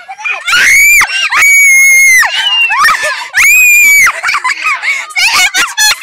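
Children shrieking with excitement: three long, high-pitched screams in the first four seconds, then quicker overlapping squeals and shouts.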